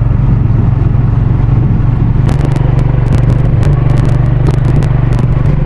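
Motorbike riding along, a steady low engine hum under an even rushing road noise, with a run of sharp clicks from about two seconds in.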